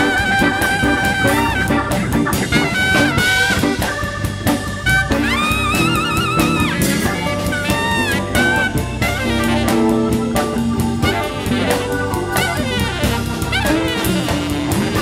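Jazz music: brass or saxophone playing a melody over a drum kit.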